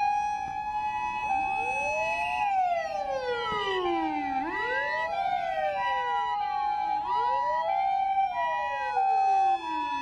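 Sirens of Japanese emergency vehicles, an ambulance and fire engines, pulling out one after another. A two-tone hi-lo siren alternates steadily, overlapped by wailing sirens that slide slowly up and down in pitch.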